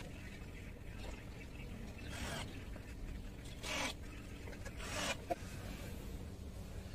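Hands rubbing and sliding over the carpet-covered plywood cabinet: three short scrapes about two, three and a half and five seconds in, the last followed by a small click, over a steady low hum.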